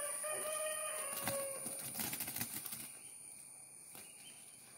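A rooster crows once: one long call of about a second and a half that falls slightly at the end. A steady high insect buzz runs underneath.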